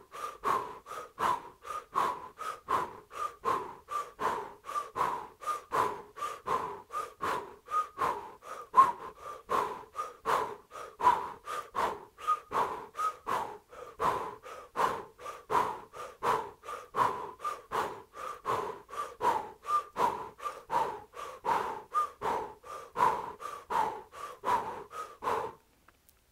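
Rapid, rhythmic, forceful breathing of a kundalini yoga breath exercise, about two to three strokes a second. It stops suddenly near the end.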